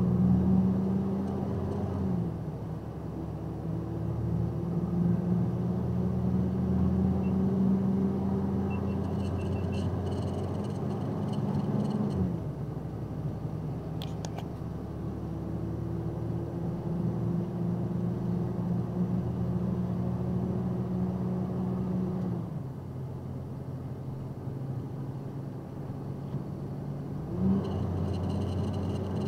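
Box truck's engine pulling as the truck accelerates, heard from inside the cab. Its pitch climbs slowly and drops sharply three times at the gear upshifts. A short sharp click comes about halfway through.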